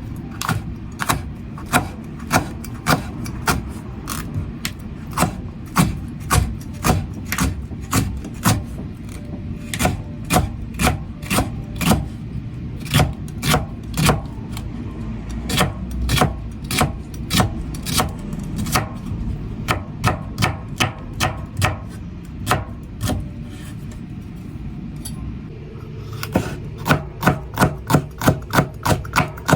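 Knife chopping green peppers on a cutting board: a steady run of crisp cuts, about two a second, quickening to about three a second near the end.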